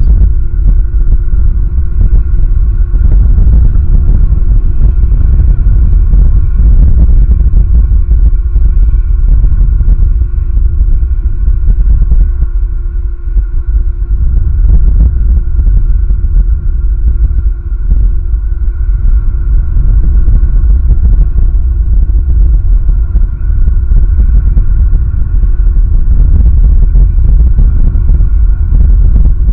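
Strong wind buffeting an outdoor camera microphone, a constant loud low rumble, with a faint steady tone running underneath.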